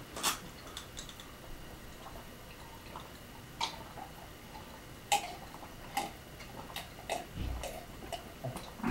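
People gulping down drinks from glasses, with scattered short, faint gulps and swallows about a second apart.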